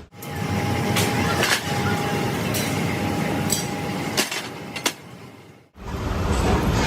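Leaf spring factory noise: a machine drone with a thin steady whine, broken by about half a dozen irregular sharp metal knocks and clinks of steel parts. About six seconds in the sound cuts off abruptly and gives way to a denser, steady machine noise.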